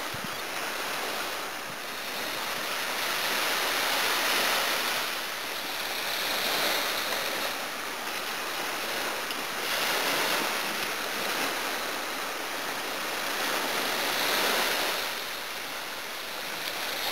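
Small sea waves breaking and washing up a sand beach. The surf hiss swells and fades every few seconds.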